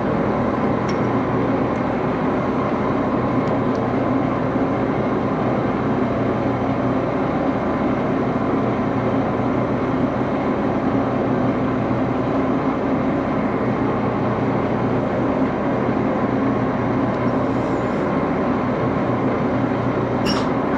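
An old metal lathe running: a steady mechanical drone with a constant low hum, unchanged throughout, and a short click near the end.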